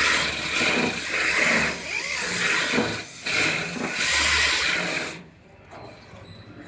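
Power-driven wire wheel scrubbing old seam foam and rust out of a pickup bed's wheelhouse, in several runs with brief pauses. It stops about five seconds in.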